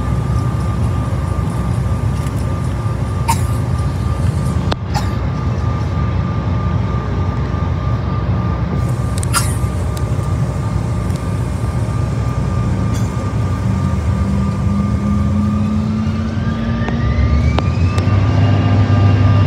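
Cabin noise of a CRJ-900 regional jet with its rear-mounted General Electric CF34 turbofans running: a steady hum with a held whine. About fifteen seconds in the engines begin to spool up, a rising whine that grows louder toward the end, as thrust builds for the takeoff roll.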